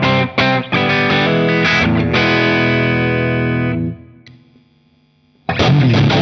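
Electric guitar strummed through a Vox AC30 on its lightly driven clean channel: choppy chords, then one chord held for a couple of seconds and cut off near four seconds in. After a short pause the strumming comes back louder and heavier, with the EarthQuaker Devices Acapulco Gold distortion pedal switched on, giving a cranked valve-amp distortion.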